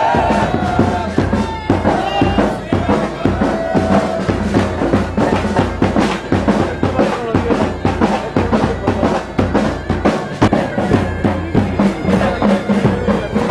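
Loud drumming with a fast, steady beat of closely spaced strokes.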